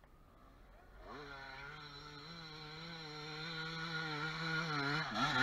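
Dirt bike engine under load, coming in about a second in and climbing a steep dirt hill, its pitch rising and falling with the throttle. It grows steadily louder as the bike nears.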